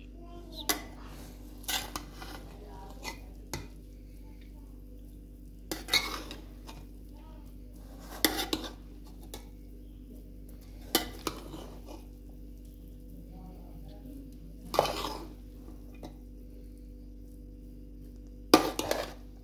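Metal utensil clanking and scraping against a cooking pan, most likely a spatula in a wok as fried rice is stirred. The clanks come in short clusters every few seconds, over a steady low hum.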